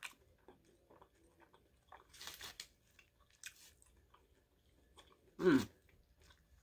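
Close-miked chewing of a bite of pastrami: small wet mouth clicks and smacks, with a brief louder smack about two seconds in. About five and a half seconds in there is a short hummed "mm" that falls in pitch.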